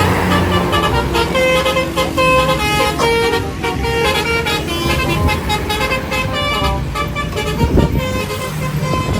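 Bus telolet horn, a multi-tone musical horn, playing a quick tune of short notes that jump in pitch, over a vehicle engine running underneath.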